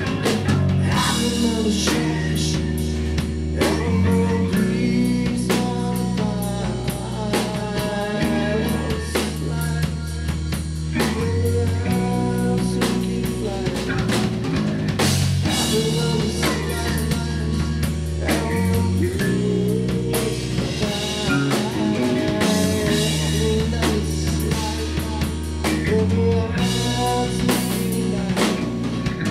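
Live rock band playing a song: drum kit, electric bass and electric guitar.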